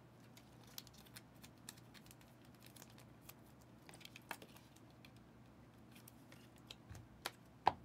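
Faint handling of trading cards and a clear plastic card sleeve: scattered light clicks and rustles, with a couple of sharper clicks near the end.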